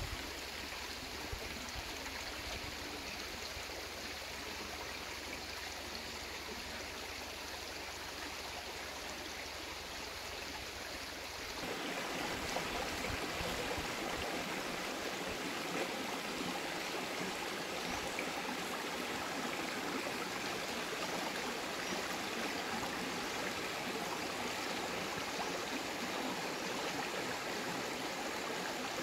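Shallow, rocky stream running, a steady rush of water. It is quieter for the first twelve seconds, then louder and fuller from there on.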